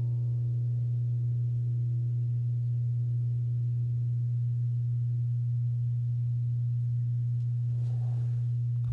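A steady low-pitched hum held at one pitch, with faint higher tones above it that fade away over the first few seconds.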